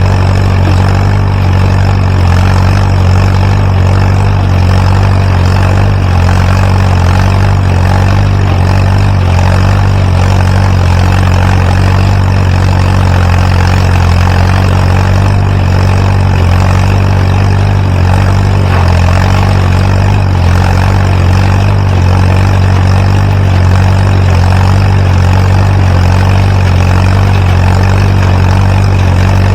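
Tractor engine running at a steady speed, driving a Massey Ferguson No. 12 square hay baler as it bales loose hay.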